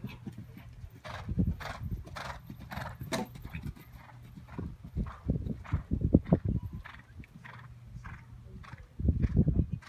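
Horse cantering on a sand arena: a steady run of hoofbeats, about three a second. Low rumbling swells in and out under it, loudest near the end.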